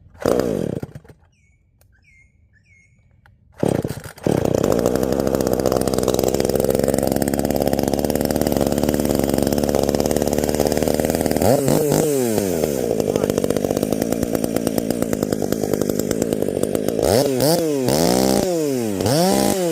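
Husqvarna 450 two-stroke chainsaw with a freshly ported cylinder being started: a first pull fires briefly and dies, a second pull about three and a half seconds in brings it to life. It runs steadily, then is revved up and back down, with a quick run of revs near the end.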